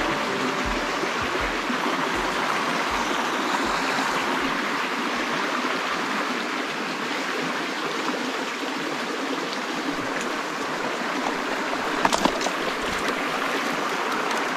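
Small creek's shallow water running over rocks, a steady rush with a few short clicks near the end.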